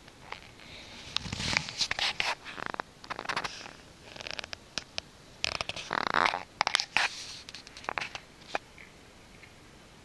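Fabric rustling and rubbing close to the microphone in irregular bursts, with sharp clicks among them, dying away about eight and a half seconds in.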